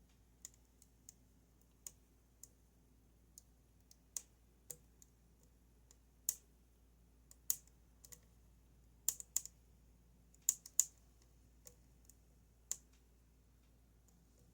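Lock pick working the pins of a Goal Z pin-tumbler lock, giving about twenty small, sharp clicks at irregular intervals. The clicks grow louder and come in quick pairs in the second half.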